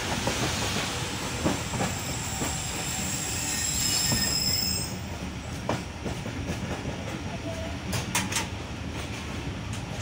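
Passenger train in motion, heard from inside a carriage: a steady rumble with a high-pitched wheel squeal that fades out about halfway, then a few sharp clicks near the end.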